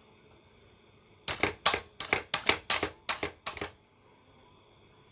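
Ratchet wrench clicking in a quick run of about nine sharp metallic clicks over two and a half seconds while undoing the cylinder head nuts of a Lifan 160cc single-cylinder motorcycle engine.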